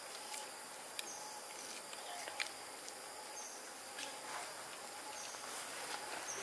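Steady high-pitched buzzing of forest insects, with a faint short high chirp recurring every second or two and a few soft clicks.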